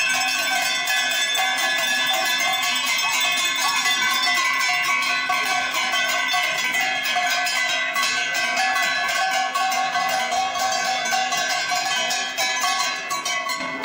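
Metal ritual bells ringing continuously in a fast, steady jangle at a puja.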